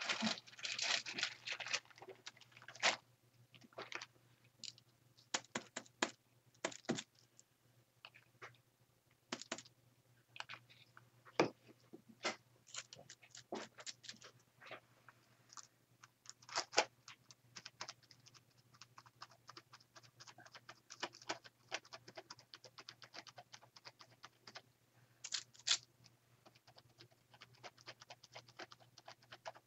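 Irregular light taps, clicks and scratches of hands at work with craft supplies: a makeup sponge dabbing paint onto a palette and through a plastic stencil on an art journal page.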